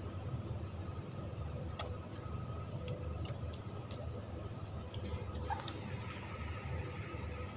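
Newborn boxer puppies suckling: scattered small wet clicks and smacks over a steady low hum.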